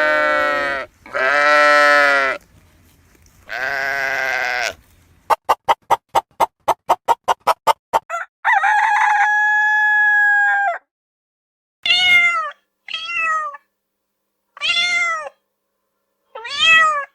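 A string of separate farm animal calls, one after another: three wavering calls, a quick run of short even pulses, one long held call, then five short rising-and-falling calls.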